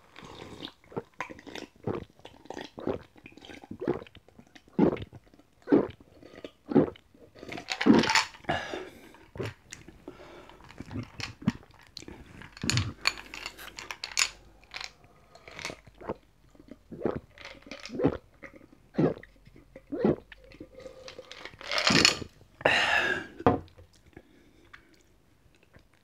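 Close-up gulping and swallowing of a strongly carbonated barley soda from a glass of ice: a long run of separate gulps and wet mouth sounds. There are longer, louder noises about eight seconds in and again near the end.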